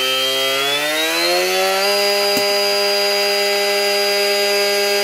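RC boat's electric motor running on the bench, unloaded, after being throttled up to high: a whine that rises in pitch over the first two seconds, then holds steady at full speed, with a faint click about halfway through.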